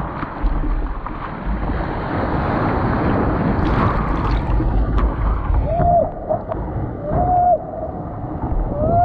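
Broken whitewater rushing and splashing around a surfboard as it is carried by the foam, heard close on a board-mounted action camera with wind buffeting the mic. In the second half several short held tones, each steady in pitch, sound over the water.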